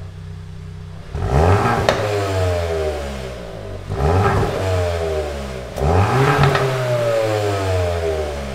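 Hyundai i20 N's turbocharged 1.6-litre engine on its stock exhaust, idling and then revved three times. Each blip rises quickly and falls back toward idle.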